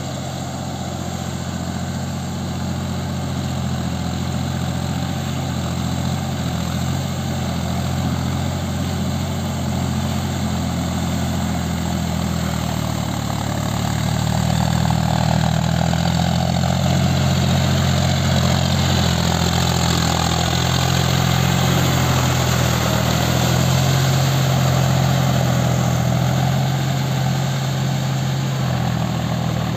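John Deere 4WD tractor's diesel engine running steadily under load while pulling a rotary tiller through flooded paddy mud. It grows louder as the tractor passes close by around the middle, then eases off.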